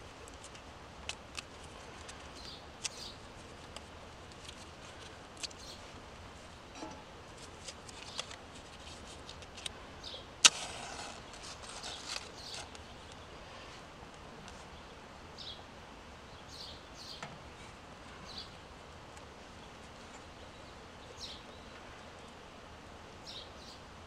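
Scattered small clicks, taps and rustles of hands working at the open firebox of a small steel tent wood stove while the kindling is lit, with one sharp click about ten seconds in.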